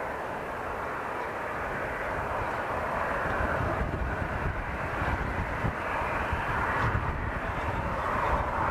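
Airliner engines: a steady roar that slowly grows louder, as from an aircraft drawing nearer or spooling up.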